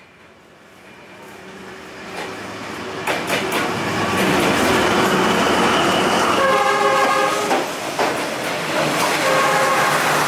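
A train approaching and passing along the street, its noise swelling over the first few seconds to a loud rumble and rattle of wheels on track. The horn sounds two blasts of about a second each in the second half.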